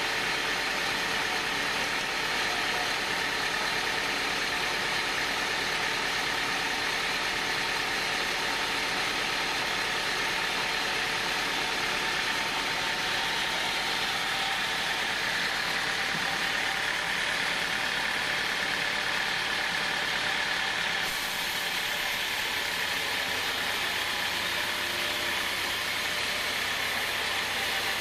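Band sawmill running: a steady, continuous mechanical noise with a held high tone. About three quarters of the way through the sound changes abruptly, and by the end the blade is cutting through a squared hardwood beam.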